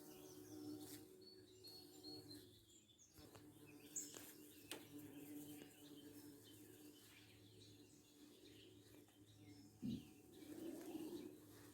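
Faint bird chirps and calls over a low steady hum, with a couple of sharp clicks in the middle.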